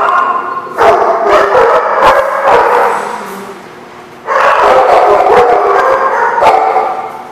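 A dog howling and yipping in long, wavering calls; the calls fade out about three seconds in and start again loudly a second later.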